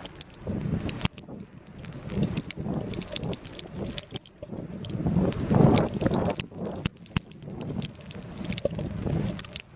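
Wind buffeting the microphone in irregular gusts, with a rumbling noise that swells and drops, loudest a little past the middle, and scattered light clicks.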